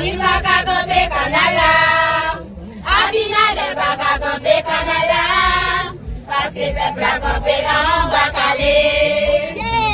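A group of schoolgirls singing a chant together in unison, loud and in phrases, with short breaks about two and a half and six seconds in.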